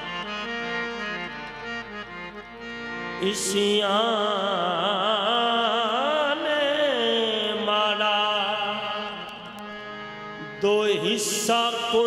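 Qawwali music: harmonium playing a melody over held drone notes, with a wordless sung line that wavers quickly in pitch through the middle. Two brief high hisses, one about three seconds in and one near the end.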